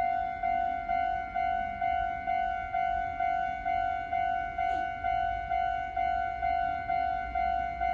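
Japanese railway level crossing warning bell: an electronic ding repeating a little over twice a second, each stroke decaying before the next, signalling that a train is approaching and the crossing is closed.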